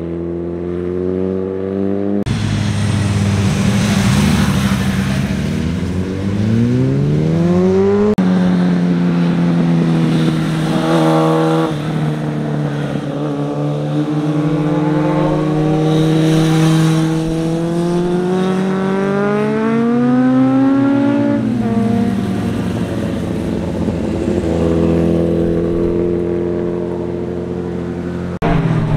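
Motorcycle engines accelerating out of hairpin bends: the engine note climbs steadily in pitch, then drops sharply at each gear change, several times over.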